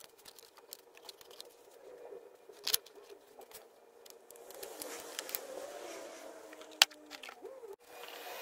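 Hands handling and fitting parts inside an opened plastic shop-vac housing: light rustling and scraping with a few sharp clicks, the loudest about two thirds of the way in.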